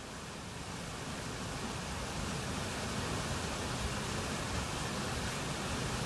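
Steady rushing of a waterfall, a smooth even roar of falling water that slowly grows louder as it fades in.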